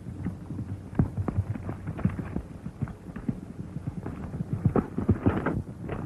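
Horse hoofbeats clip-clopping on a rocky trail, irregular knocks that come thicker and louder about five seconds in, over the low hum of an old film soundtrack.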